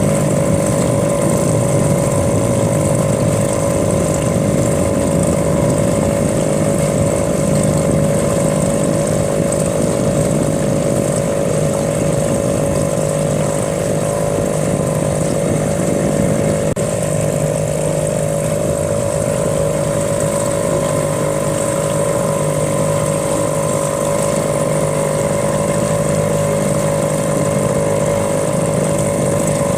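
Small boat outboard motor running at a steady speed, an even drone with no change in pitch.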